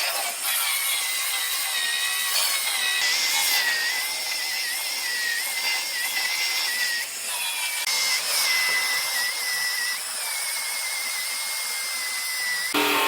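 Power tool cutting into an aluminum truck bedside, a high whine that wavers and dips as it bites, over a gritty hiss.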